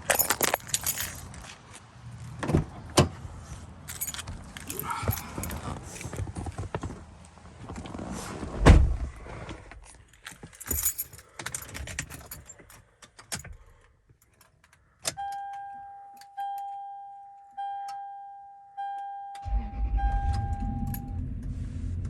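Keys jangling with clicks and knocks as the Toyota Land Cruiser 100 is got into, then the dashboard warning chime beeping five times, about one a second. About 19.5 s in, the engine starts and runs steadily under the last beeps.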